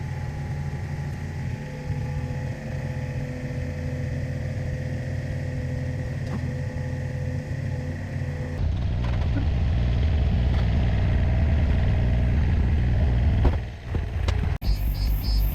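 Mini excavator engine running steadily, then louder and rougher a little past halfway. The engine sound breaks off suddenly near the end.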